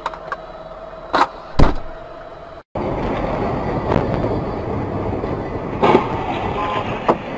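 Sharp knocks and a heavy thump over a steady hum, then, after an abrupt cut, steady road traffic noise with two more knocks.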